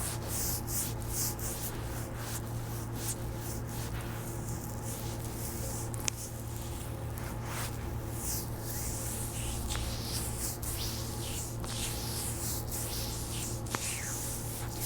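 Hands rubbing and stroking the skin of a bare foot during a massage, heard close up as a run of soft, repeated swishes. Two sharp clicks come through, about six seconds in and near the end, over a steady low hum.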